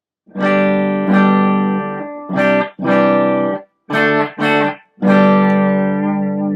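2018 Duesenberg Paloma electric guitar played through its pickups with a little overdrive from an Ibanez Nu-tube pedal: a series of chords struck in turn, several choked off after about half a second, the last left to ring out.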